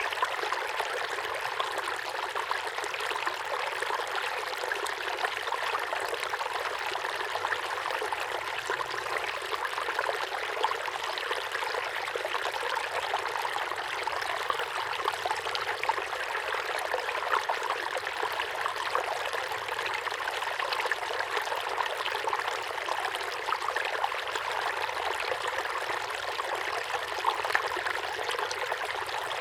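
A small waterfall pouring steadily into a pond, a continuous splashing and trickling hiss with fine bubbling detail and little low rumble.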